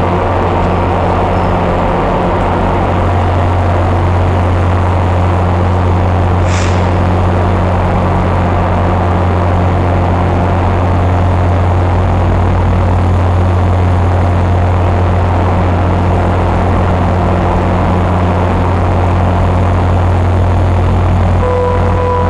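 Diesel commuter-rail locomotive engine running steadily with a loud low drone. A brief high squeak comes about six and a half seconds in.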